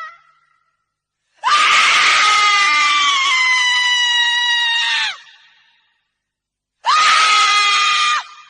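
A woman screaming: one long scream of about four seconds whose pitch sinks slightly toward its end, a pause, then a second, shorter scream near the end.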